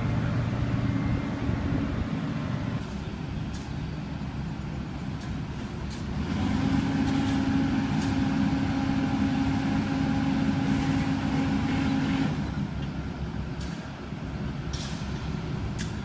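Caterpillar tracked excavator's diesel engine running, settling into a steadier, higher hum for about six seconds in the middle, with a few sharp clicks scattered through.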